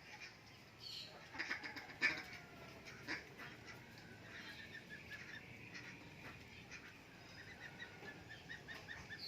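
Faint birds calling: a few scattered calls early on, then a quick series of short repeated calls through the second half.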